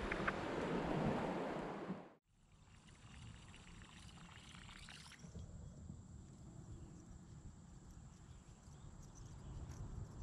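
Rushing river water through a riffle, a steady loud wash that cuts off abruptly about two seconds in. It is followed by faint low background rumble with a few light ticks.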